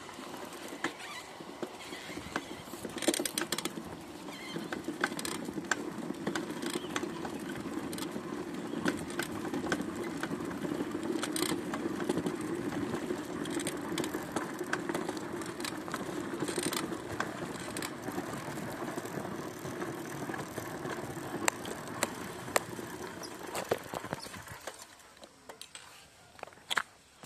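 Bicycle rolling along a paved road: a steady tyre and road noise with frequent rattles and clicks from the bike. About 25 seconds in, the rolling noise dies away and only scattered clicks remain.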